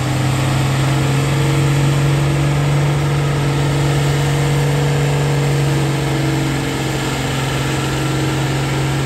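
Oliver farm tractor engine running under heavy load as it drags a weight-transfer pulling sled: a loud, low, steady drone that holds its pitch throughout.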